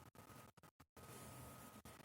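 Near silence: faint room hiss with a thin steady high tone, dropping out in several short gaps.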